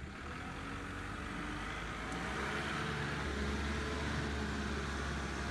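Kubota's diesel engine running, its low hum growing louder about three seconds in as the machine works.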